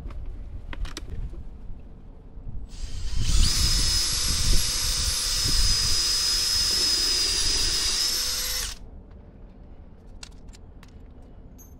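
Cordless drill boring into a wooden board, running at a steady high whine for about six seconds and then stopping suddenly. A few light clicks come before it.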